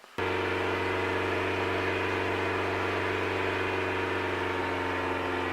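Mazda Miata's four-cylinder engine idling steadily while the Seafoam sprayed in through the throttle body is run through it. The sound cuts in abruptly about a fifth of a second in and holds an even pitch and level.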